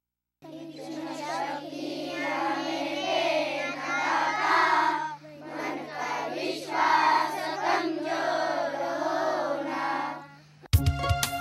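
A group of children singing a prayer together, with a steady low hum underneath. It cuts off abruptly near the end, and instrumental music with sharp, regular beats takes over.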